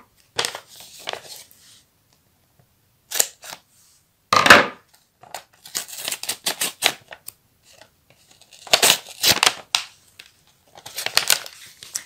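A folded paper packet being opened by hand: paper rustling and crinkling in short bursts with pauses, and sticky tape being peeled off the paper.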